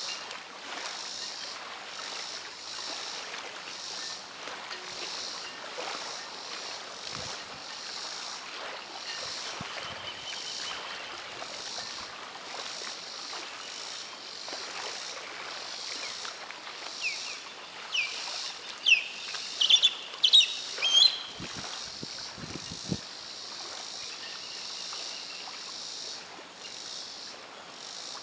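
Waterside ambience: a steady pulsing drone of insects over a hiss of water and breeze. A little past the middle, a bird gives a quick series of sharp, sweeping chirps, the loudest sounds here, with a few low bumps among them.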